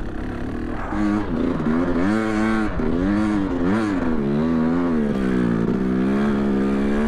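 KTM 300 XC TPI dirt bike's single-cylinder two-stroke engine revving up and down repeatedly under throttle as the bike pushes through deep powder snow, surging about a second in and holding a steadier note in the second half.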